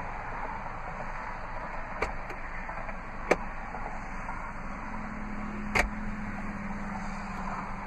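Jeep Renegade's plastic glovebox door being opened with a couple of light clicks and a sharp latch click, then pushed shut with a loud snap of its latch, over a steady background hiss.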